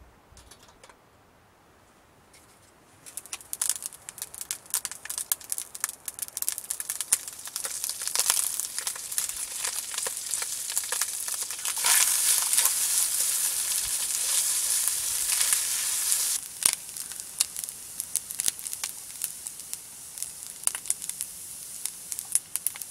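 Rice and tuna sizzling and crackling in a hot frying pan over a small wood-burning stove, with water added to steam the rice, while being stirred. The sizzling starts about three seconds in and is loudest in the middle.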